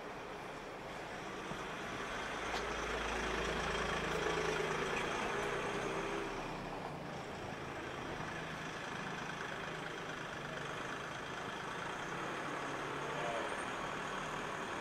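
A car's engine running at low speed close by, swelling for a few seconds near the start, over a steady wash of street noise.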